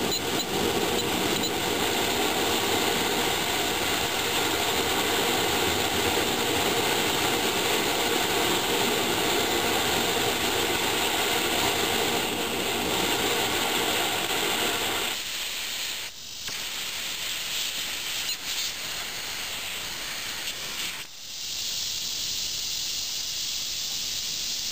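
Hago siphon oil burner running at full fire: a steady rush of flame and atomizing air. About fifteen seconds in the flame goes out and the low roar drops away, leaving a hiss of the atomizing air that turns quieter again a few seconds later.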